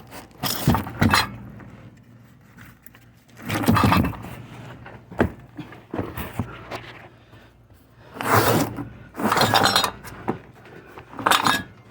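Metal clanking and scraping from the Chevrolet Express van's spare tire support bracket and carrier hardware as they are worked loose, in about five sharp bursts of a second or less.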